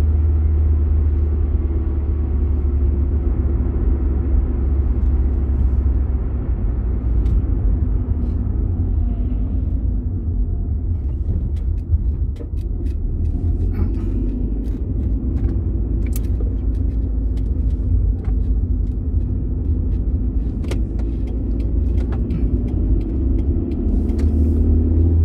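Car cabin noise while driving: a steady low rumble of engine and tyres on the road, with a few faint clicks in the second half.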